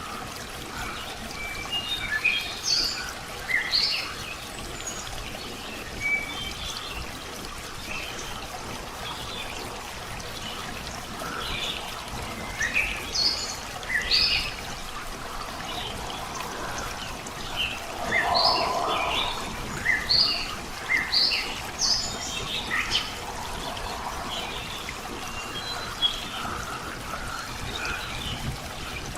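Songbirds chirping in short high calls over the steady sound of trickling running water. The calls come in bunches, thickest a few seconds in, around the middle, and again in the last third.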